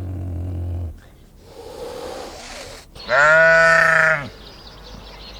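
A low, steady big-cat growl ends about a second in. Then, after a short stretch of faint noise, a farm animal gives one loud bleat lasting about a second.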